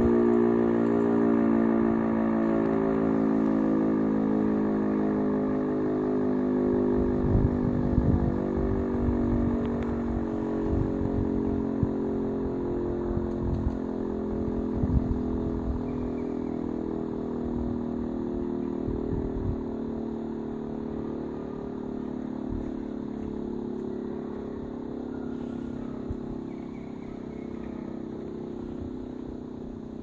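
E57 electromechanical air-raid siren sounding one long steady tone that slowly fades, the continuous note of the all-clear (Entwarnung) signal.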